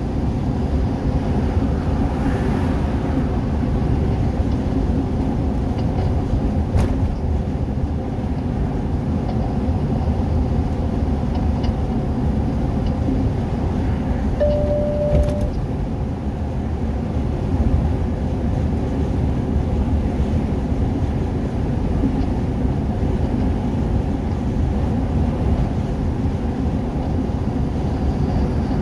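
Steady engine and road noise inside a moving vehicle's cabin at highway speed, with a short beep about halfway through.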